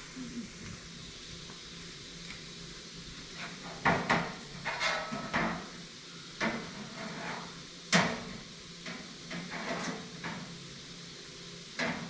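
New sheet-metal truck-bed rails being handled, with irregular clanks and knocks as they are moved and set down. The loudest hits come about four and eight seconds in.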